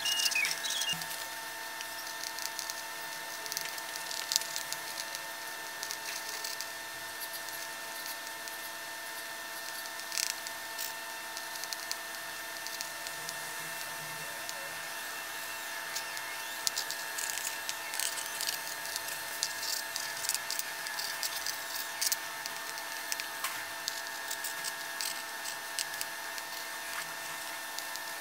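Pencil scratching and ticking on a drawing board, in many short scattered strokes, over a steady hum of several tones.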